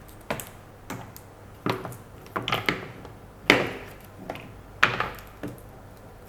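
Plastic (polypropylene) chopping boards being handled and set down on a table, giving a series of separate knocks and clacks, about eight over six seconds, the louder ones about halfway through and near the end.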